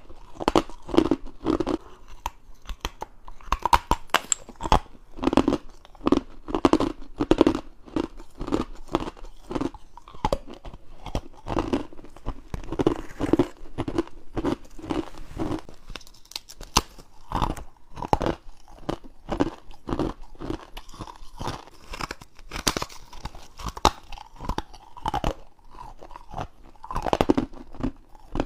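Close-up bites and crunches of hard, frosty ice, humidifier frost and ice cubes cracking between the teeth: many sharp crunches in quick, uneven succession.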